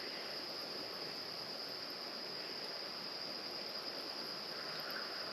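Insects trilling steadily in an unbroken, high-pitched chorus.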